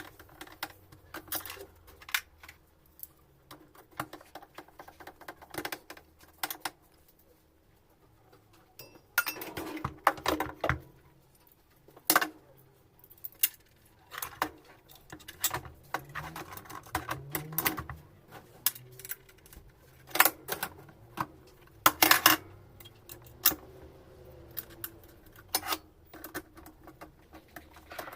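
Irregular clinks and knocks of metal parts and tools being handled, with louder clusters of clatter about ten, twelve, twenty and twenty-two seconds in.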